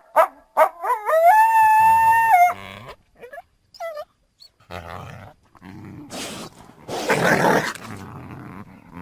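Coyote calling: a few quick yips, then a howl that rises and holds steady for about a second and a half, more short yips, and then several seconds of harsh, raspy calls.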